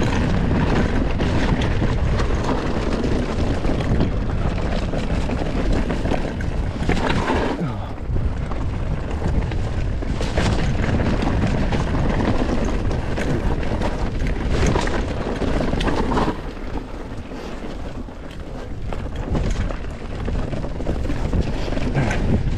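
Mountain bike descending a rough dirt trail: wind rushing over the microphone with tyre noise and frequent knocks and rattles from the bike over the ground. It eases for a few seconds about three-quarters of the way through.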